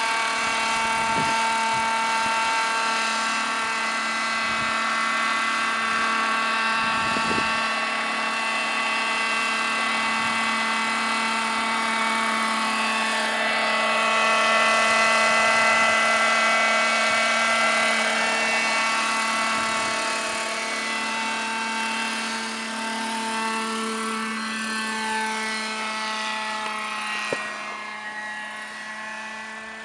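Petrol-engined Vario scale model of a Robinson R22, a radio-controlled helicopter, running with the steady whine of its engine and rotors. It grows louder as it passes close overhead about halfway through, then fades as it flies away.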